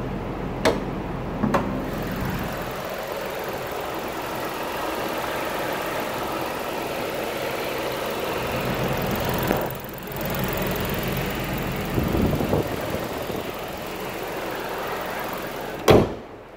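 Chevrolet Spark small petrol engine idling steadily, heard close up from the engine bay and front of the car. Two sharp clicks about a second in and a loud knock near the end.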